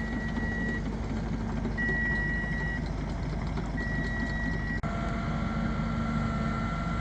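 Heavy drill rig truck's reversing alarm beeping, three long single-pitch beeps about two seconds apart, over its running diesel engine. About five seconds in the beeping stops abruptly and a steady high whine carries on over the engine.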